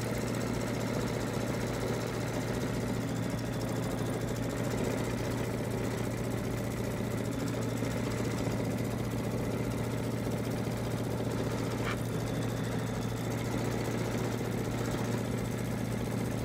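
Embroidery machine stitching steadily, a continuous even machine hum.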